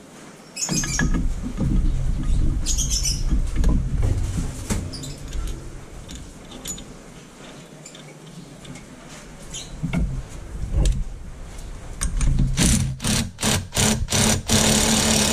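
Workshop noise from work on a differential: low handling rumble and metal clatter, then, about twelve seconds in, a quick run of sharp knocks, followed by a steady mechanical buzz near the end.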